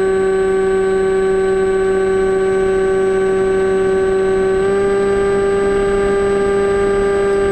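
AXN Floater Jet's electric motor and propeller running at steady cruise throttle, a droning whine. The pitch steps up slightly about halfway through as the throttle is nudged.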